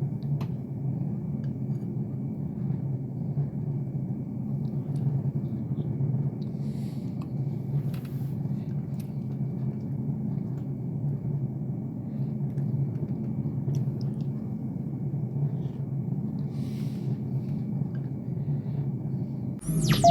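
A steady low droning hum, even in level and without speech. Just before the end a sudden electronic sweep and beeping tones cut in.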